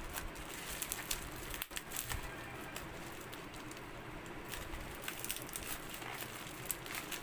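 Plastic bubble wrap crinkling and rustling as wrapped glass ink bottles are handled, with scattered light crackles and clicks.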